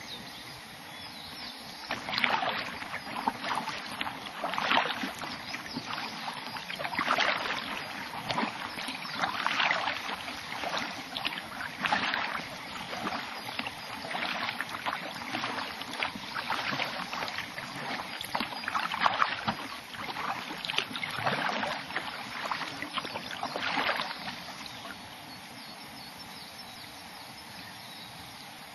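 Kayak paddle strokes in calm water: a splash-and-swish about every two and a half seconds, about ten in all. The strokes stop a few seconds before the end, leaving a steady faint hiss.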